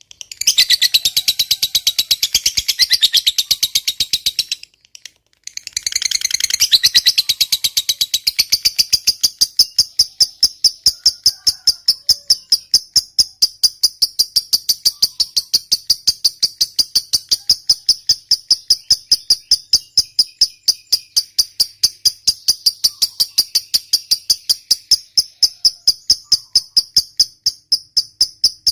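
Lovebird giving a long 'ngekek' chatter, a high-pitched, rapidly pulsing trill, with a brief break about five seconds in. From about eight seconds it settles into an even, steady high trill.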